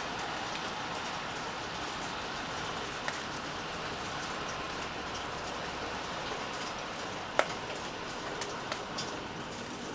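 Steady rain falling, with scattered louder drops ticking on a surface; one sharp drip stands out about seven seconds in.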